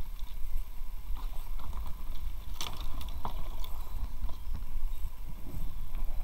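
Water sloshing and lapping against an inflatable kayak as it moves down a shallow brook, over a constant low rumble. There are a couple of sharp splashy knocks about two and a half and three seconds in.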